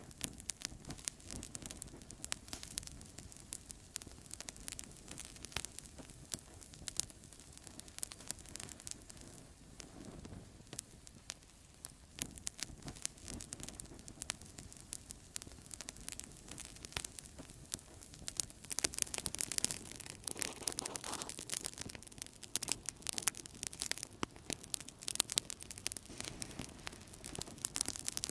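Outdoor campfire crackling: irregular sharp pops and snaps of burning wood over a low steady rush of flame. The pops come thicker and louder about two-thirds of the way through.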